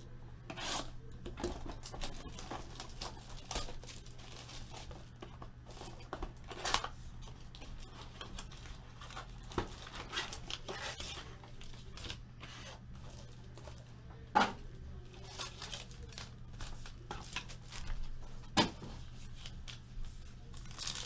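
Hands tearing open a sealed cardboard trading-card box and handling its packaging: continual rustling, scraping and tearing, with a few sharper clicks.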